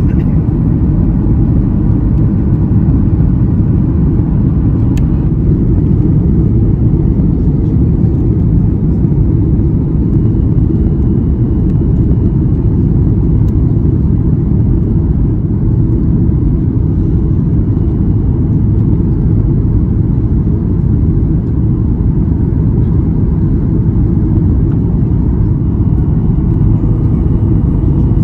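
Steady low rumble of jet engine and airflow noise inside the cabin of a Boeing 737-8 MAX with CFM LEAP-1B engines, on approach.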